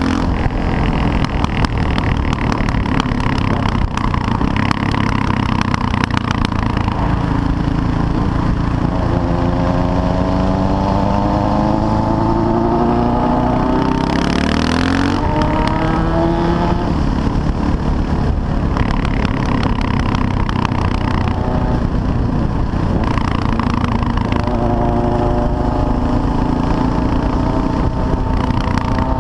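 CCM R30 supermoto's 644 cc single-cylinder engine under way, its pitch climbing as it accelerates and dropping at gear changes, a couple of times over, with wind noise on the microphone.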